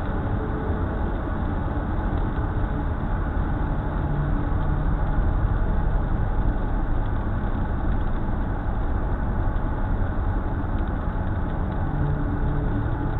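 Steady road noise heard inside a car at highway speed: engine and tyres running on a rain-wet road.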